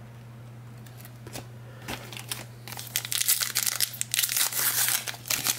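Plastic wrapper of a trading card pack being torn open and crinkled. Dense crinkling starts about halfway in, after a few soft clicks of handling.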